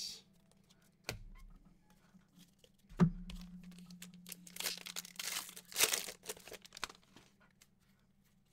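Plastic trading-card pack wrapper being torn open and crinkled, in several short rustling bursts, after a single sharp knock about three seconds in.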